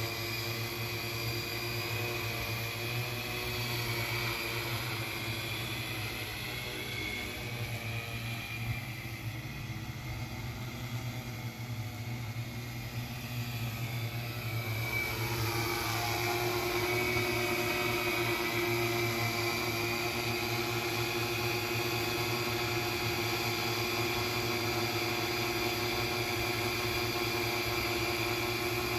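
Multirotor drone's propellers whirring steadily in flight, several motor tones layered together. About halfway through, the pitch shifts and the sound grows louder.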